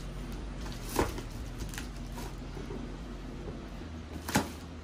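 Quiet handling noise of a small tape-wrapped cardboard box and plastic-wrapped parts being moved: faint rustling with two sharp knocks, one about a second in and one near the end.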